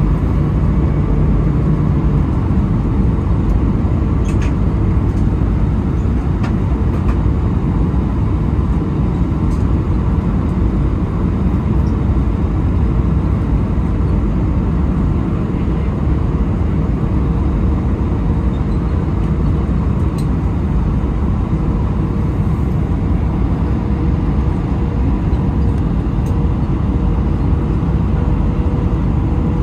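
Steady cabin noise inside an Airbus A319 in descent, heard from a window seat: an even, loud rush of airflow and the CFM56 turbofans, with a faint steady hum tone and a few light ticks.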